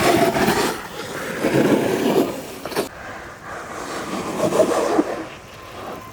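Freebord (downhill skateboard with centre caster wheels) rolling and sliding on pavement: the wheels rumble and scrape in repeated swells as the rider carves and slides through turns.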